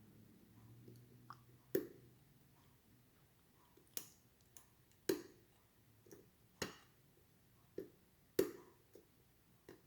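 Lock pick and tension wrench working the pins of an ASSA 700 pin-tumbler lock: a scattering of sharp metallic clicks, about a second or more apart, with fainter ticks between them.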